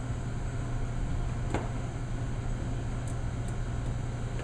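A steady low mechanical hum with a faint hiss under it, and a few small handling clicks, the sharpest about a second and a half in.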